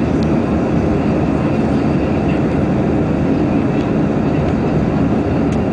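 Steady engine and airflow noise inside the cabin of an Airbus A320 climbing out after takeoff, an even low rumble with no breaks.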